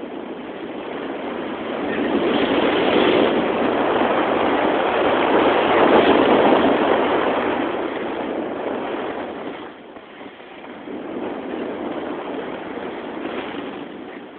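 Rushing noise of skiing downhill: wind over the camera's microphone and skis sliding over snow. It grows louder over the first few seconds, drops off sharply about ten seconds in, then picks up again.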